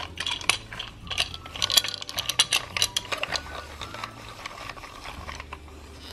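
Plastic Play-Doh crinkle-cut fry cutter with its blade spun by hand, a run of uneven ratcheting plastic clicks from the turning mechanism.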